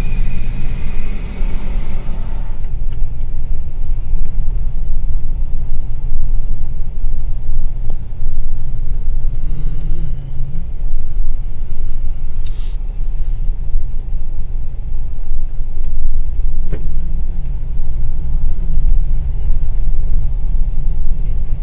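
Car driving along a town street heard from inside the cabin: a steady low engine and road rumble, with a couple of brief clicks about halfway through and again a few seconds later.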